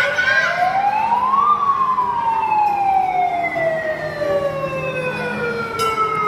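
Wailing fire-engine siren on a children's mock fire truck ride: a slow sweep that rises to its peak about a second and a half in, then falls slowly over the next five seconds before starting to rise again near the end.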